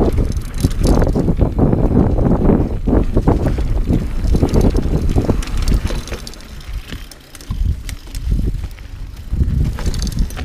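Knobby tyres rumbling over a dirt trail, with the Dartmoor Primal 29er hardtail mountain bike rattling and knocking over bumps and wind buffeting the microphone. About six seconds in the rumble eases off as the bike slows, leaving scattered knocks and rattles.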